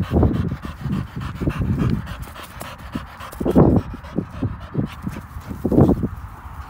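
Blue Staffordshire Bull Terrier panting hard right at the microphone with a tennis ball in its mouth, in quick repeated breaths, two of them louder, about halfway and near the end.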